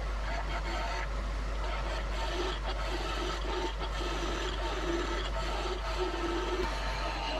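Wood lathe spinning an ash spindle while a hand-held turning tool cuts along it: a steady scraping hiss of the cut over the lathe's running hum.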